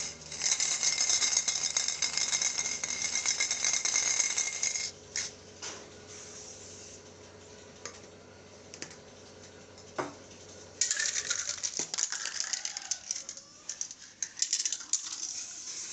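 Aerosol spray-paint can hissing as black paint is sprayed onto a motorcycle alloy rim: one long steady spray of about four and a half seconds, a few short spurts, then from about eleven seconds a run of shorter broken sprays.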